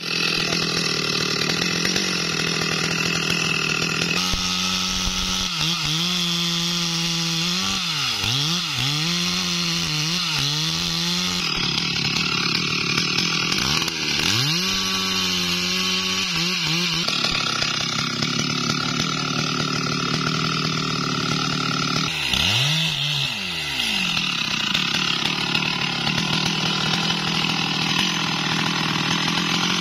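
Stihl MS 382 two-stroke chainsaw running at high revs as it cuts into the trunk of a standing tree to fell it. The engine pitch dips and climbs back up several times, and the sound changes abruptly a few times.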